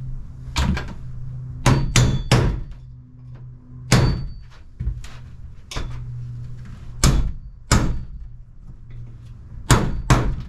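About ten sharp, irregular knocks of a blunt-tipped nut driver striking the inside of a thin aluminum trailer roof sheet, dimpling marks that can be seen from above.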